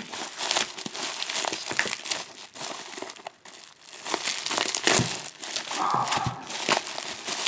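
Postal package being unwrapped by hand: irregular crinkling and rustling of the packing material, with some tearing, easing off briefly about three seconds in.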